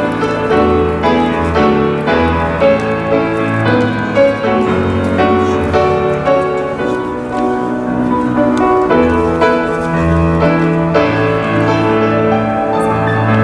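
Piano playing slow, chordal music with held bass notes.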